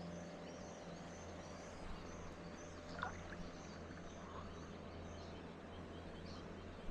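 Quiet outdoor ambience: a steady low hum under a faint, high chirp repeating about twice a second, with a small click about three seconds in.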